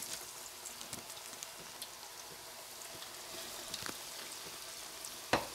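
Breadcrumbed chicken meat rolls deep-frying in hot oil, a steady sizzle with scattered crackles and pops. A sharp knock sounds a little before the end.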